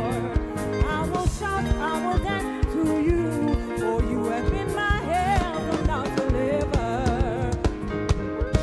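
Gospel worship song: voices singing over a band with a steady drum beat.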